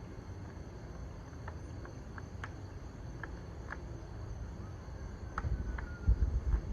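Outdoor ambience: scattered short insect chirps over a steady low rumble, which grows louder near the end.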